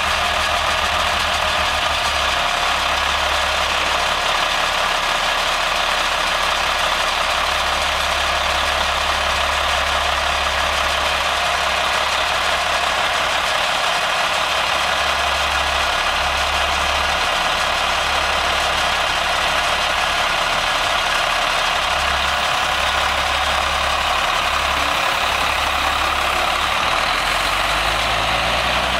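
1993 International 8100 dump truck's diesel engine idling steadily. Near the end it revs up as the truck starts to move off.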